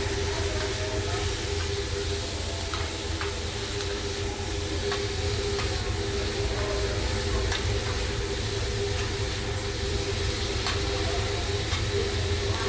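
Food sizzling on a teppanyaki hot plate, a steady hiss over a constant hum, with scattered light clicks of metal spatulas against the griddle.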